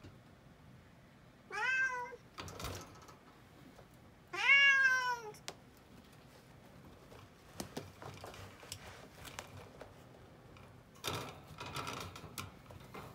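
A cat meows twice, the second call longer and louder, each rising then falling in pitch. Light clicks and rustles follow as a cat shifts about in a wire cage.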